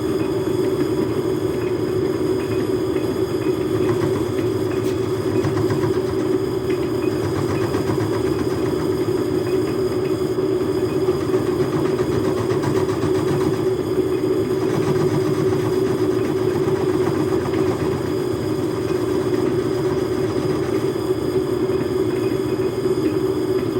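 Logan metal lathe driven by a Harbor Freight electric motor, running steadily with a constant hum while facing the end of a steel mandrel.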